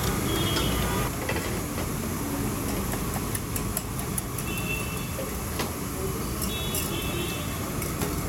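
Beaten eggs poured into a large pan of hot butter and sizzling over a gas burner, under a steady low rumble. A few faint clicks come about three seconds in and again past five seconds.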